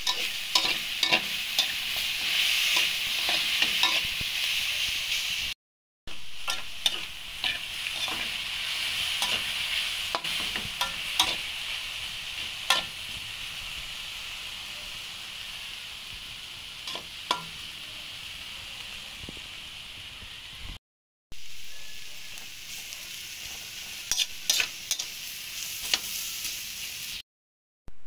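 Sliced bitter melon sizzling as it is stir-fried in oil in a pan, with sharp clicks and scrapes of the stirring utensil against the pan. The sizzle breaks off briefly three times.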